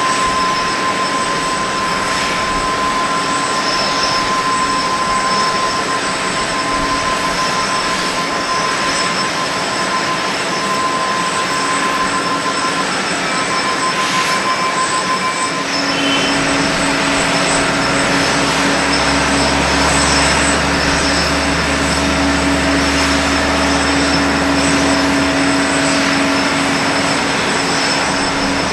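Steady jet-aircraft noise on an airport apron: a continuous rush with high whining tones. About halfway through, a deeper steady hum and low rumble join in.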